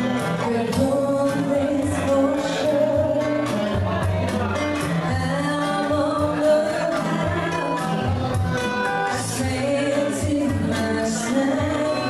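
Live band performing a song: a woman sings the lead into a microphone over guitar and a drum kit keeping a steady beat with cymbal hits.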